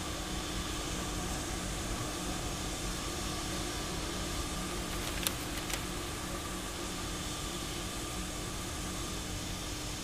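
Steady hiss with a low, even hum, and two brief faint clicks a little past halfway through.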